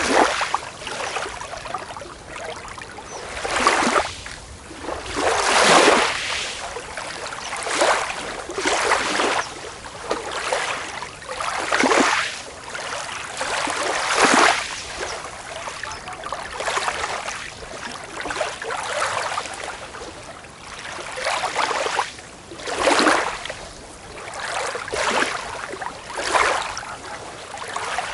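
Small waves breaking and washing up a beach, one after another about every two to three seconds, each a rising and fading rush of hiss.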